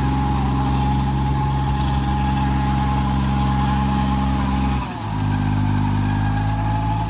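John Deere tractor's diesel engine running steadily while driving a PARAM rotavator through the soil, with a steady high whine over the engine note. About five seconds in the sound dips briefly and the engine note changes.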